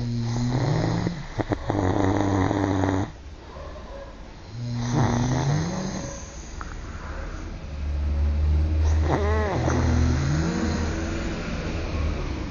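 Two men snoring loudly in their sleep: three long snores whose pitch slides up and down, the last one the longest, with a deep drone beneath it.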